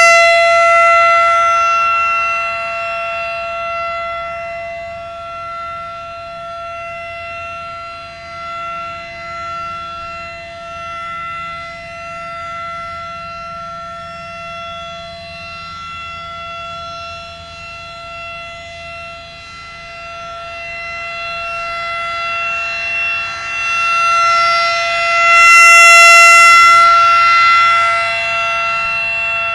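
Federal Signal 2001-SRN rotating outdoor warning siren sounding a steady single-pitch alert tone. It is very loud at first, fades to much quieter over the middle stretch, and swells back to full loudness near the end as the rotating horn sweeps past again.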